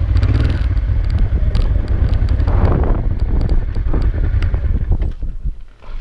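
Honda Transalp V-twin motorcycle riding slowly over a gravel track, with heavy wind rumble on the microphone and small clicks and rattles. The noise drops away briefly near the end as the bike slows.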